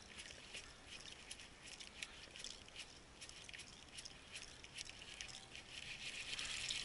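Faint, irregular patter of small ripples lapping against a plastic kayak hull, growing a little louder near the end.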